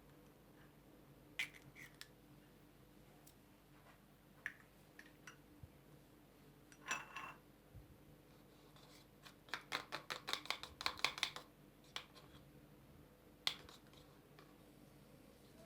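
Light clicks and taps of kitchen utensils and containers being handled while ingredients are prepared. About nine seconds in comes a quick run of taps, several a second, lasting about two seconds.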